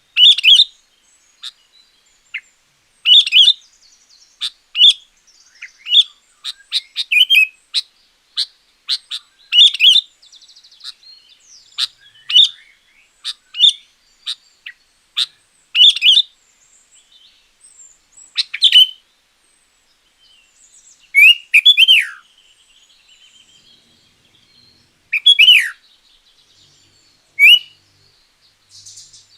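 Sooty-headed bulbul (kutilang) singing: loud, short whistled notes and chirps come in irregular bursts, and later a few phrases slur downward.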